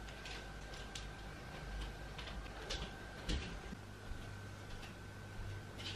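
Scattered light clicks of keys being tapped on a keyboard, irregular and a few per second, over a faint steady hum.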